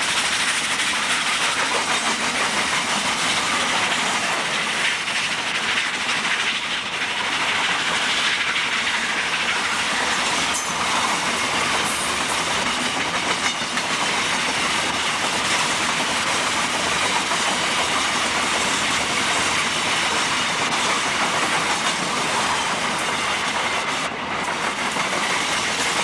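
Steam-hauled grain train behind a South African Railways class 25NC 4-8-4 locomotive running past at speed on level track: a loud, steady rolling noise of the moving train, with a brief dip about 24 seconds in.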